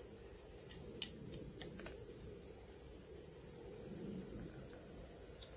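A steady high-pitched chorus of insects, over the low, steady rush of a small canister gas stove burning under a pot. A few faint clicks of a spoon against the pot come between one and two seconds in.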